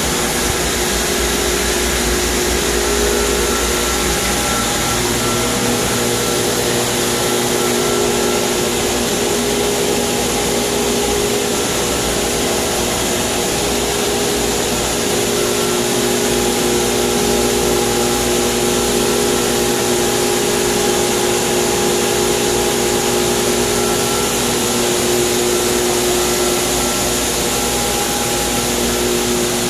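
Swimming-pool circulation pumps running steadily, a loud even hiss of motors and water with a steady multi-tone hum.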